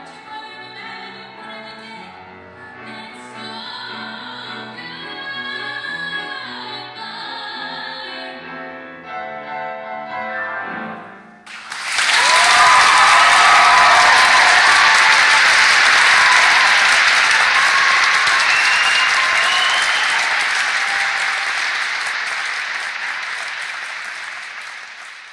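A mezzo-soprano sings the last phrases of a show tune with piano accompaniment. About eleven and a half seconds in, the audience breaks into loud applause, which slowly dies down toward the end.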